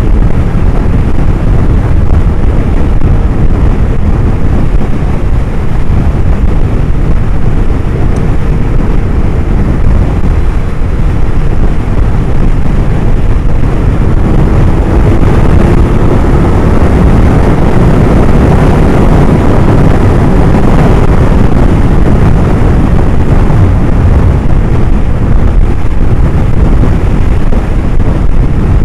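Suzuki Hayabusa's inline-four engine running at a steady cruise under a loud rush of road and wind noise on the microphone, with the engine note faint and rising slightly about halfway through.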